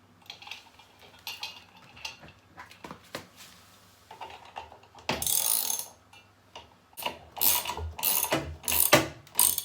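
Ratchet wrench clicking as a bolt is run down to fasten the new rotor onto the washing machine's drive shaft. Scattered clicks come first, then a longer run about five seconds in, then several loud short strokes near the end.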